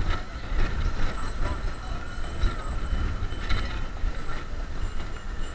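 Riding noise from a Xiaomi M365 electric scooter on a paved road: a heavy, steady rumble of wind and road on the microphone, with a faint steady whine and a few scattered clicks.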